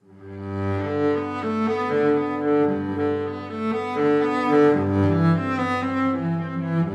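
Instrumental background music fading in over the first second: a sustained deep bass note under a slow melody.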